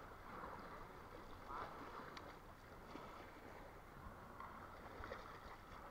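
Faint shallow water lapping and splashing in small waves, with a few light clicks.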